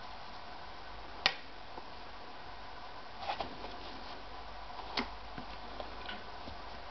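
A few sharp clicks and taps from handling things at a hamster cage, the loudest about a second in and a small cluster a little past the middle, over a faint steady hiss.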